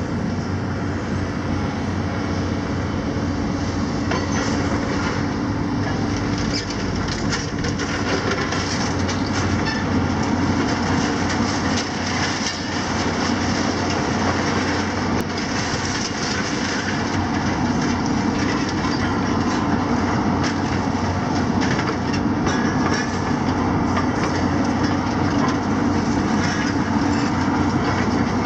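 Hitachi and JCB demolition excavators working together, their diesel engines and hydraulics running steadily under a continuous clatter and crunching of concrete and metal debris as the grapple, shears and bucket tear at the building.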